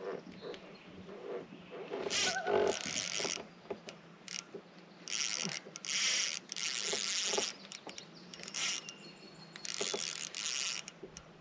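Baitcasting fishing reel being cranked in short bursts of about half a second to a second and a half, about six times, as line and lure are wound in.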